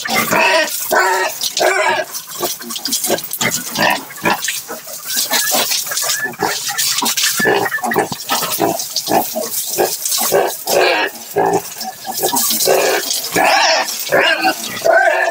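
Pigs grunting in quick succession, many short grunts a second.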